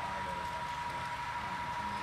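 Low, steady engine rumble with a constant high whine, typical of a sound-equipped HO scale model diesel locomotive running.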